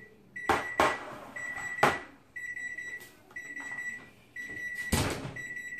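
Oven timer on an electric range beeping steadily, about one long high beep a second: the signal that the cooking time is up. Several sharp knocks and clatters sound over it, the loudest about five seconds in.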